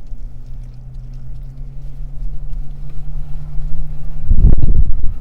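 Car engine idling steadily, a low even hum heard inside the cabin. About four seconds in, a short, loud, low noise rises over it.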